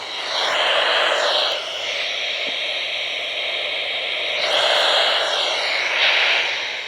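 Static hiss from an Eton ESP2100 radio's speaker with no station coming through, swelling louder twice: once near the start and again about four and a half seconds in.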